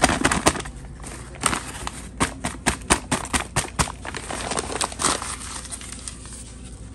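Paper flour bag crinkling and rustling as it is shaken empty over a plastic mixing bowl: a quick run of sharp crackles that thins out after about four seconds.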